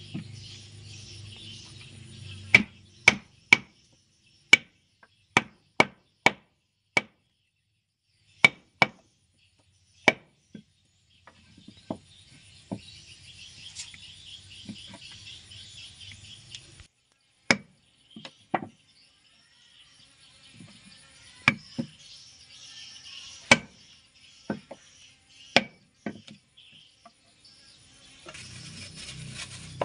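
Sharp, irregular knocks of a wooden block hammered onto the spine of a kitchen knife, driving the blade through a frozen red arowana on a wooden plank. About twenty strikes come in short runs, with a pause of a few seconds near the middle.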